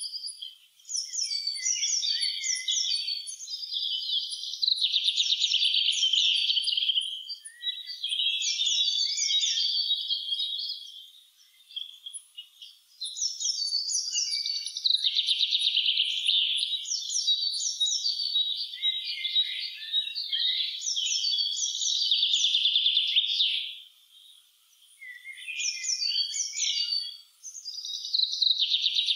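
Songbirds singing in a spring forest, several songs overlapping in quick chirping phrases, with two short lulls where the singing drops away.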